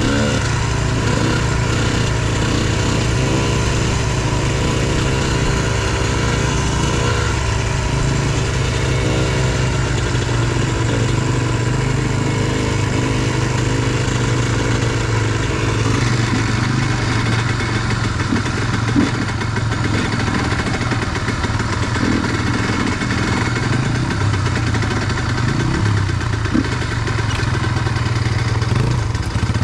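Dirt bike engine running steadily at a low, even speed while being ridden, heard from on the bike, with another dirt bike running just ahead.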